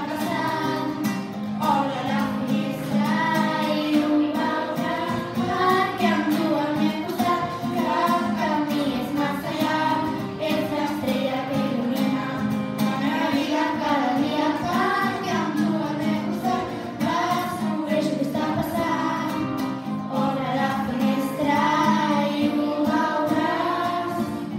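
A group of girls singing a pop song together into handheld microphones, over an instrumental backing track.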